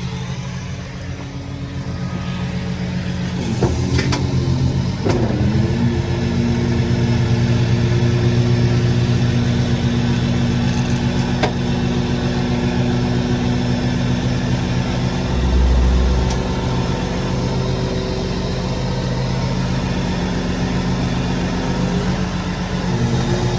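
Tow truck engine running steadily, then revving up about four seconds in and holding at a higher, even speed before easing back near the end. A couple of sharp clicks and a short low thump sound over it.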